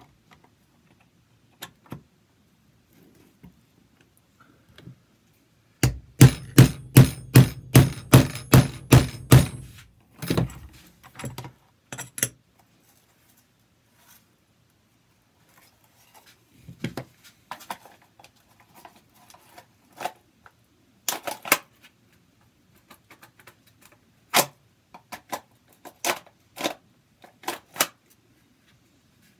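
A hammer striking in quick succession, about three blows a second for some four seconds, setting rivets in a Kydex holster. Scattered lighter clicks and knocks follow as the stiff Kydex shell is handled.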